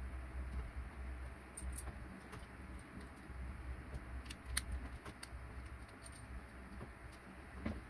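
Small metal parts clicking and tapping as a miniature steel leaf spring and its shackle are handled and fitted onto a plastic RC truck axle, a few scattered clicks with the sharpest about halfway through, over a steady low hum.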